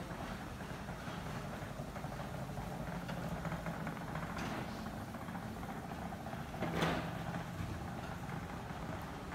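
Steady low hum and background noise of a large indoor exhibition hall, with one brief louder noise about seven seconds in.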